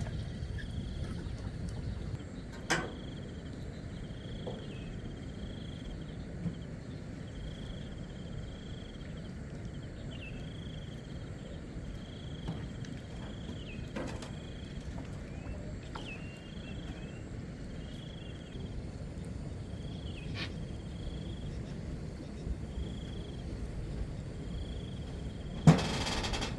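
Outdoor ambience: a steady low rumble, with a short high chirp repeating about once a second. A few sharp clicks are scattered through it, and a louder knock comes near the end.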